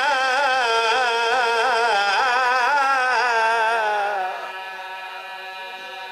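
A man's chanting voice, amplified through a microphone, holds a long note with a heavy wavering vibrato that slides downward and fades about four seconds in. Fainter steady tones linger after it.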